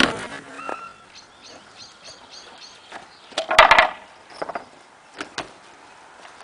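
A unicycle ridden over paving stones: one loud scuffing thud about three and a half seconds in, followed by a few sharp clicks, with faint bird chirps earlier.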